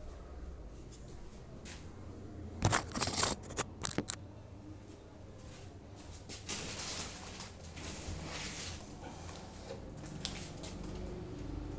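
Packaging being handled during an unboxing: a burst of sharp crackles and clicks about three seconds in, then rustling a few seconds later.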